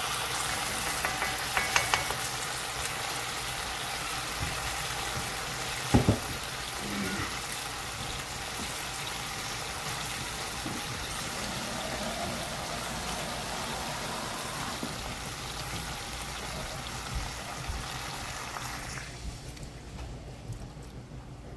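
Squirrel and vegetable soup sizzling in a hot cast-iron skillet, a steady hiss, with a spoon scraping and clicking against the pan in the first two seconds and a sharp knock about six seconds in. Near the end the sizzle dies away suddenly as liquid is poured into the pan.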